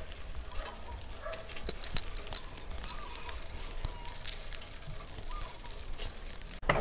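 Bicycle ridden over a dirt and gravel track: tyres crunching and the bike rattling, with many irregular sharp clicks.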